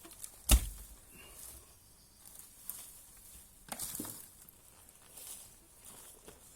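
A sharp knock about half a second in, then soft rustling and a few fainter clicks around four seconds in, over a steady faint hiss.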